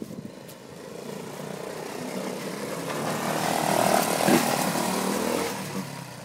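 A 110cc ATV's small engine running as the quad rides past close by: it grows louder to a peak about four seconds in, then fades as it moves away.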